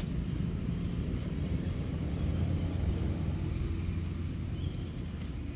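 Steady low outdoor rumble, with a short rising high chirp repeated about four times, like a bird calling.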